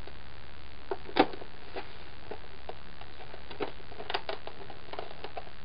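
White plastic clone-armor shin pieces being handled and aligned by hand: scattered light clicks and taps of plastic on plastic and on the cutting mat, the sharpest about a second in and a few close together around four seconds in.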